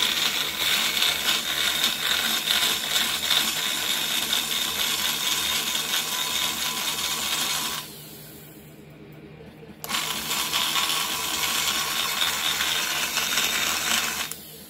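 Hand-held die grinder with a burr cutting the cast-iron short side radius of a Vortec cylinder head port: a steady high-pitched grinding as metal is taken off. It stops about eight seconds in, starts again two seconds later, and stops just before the end.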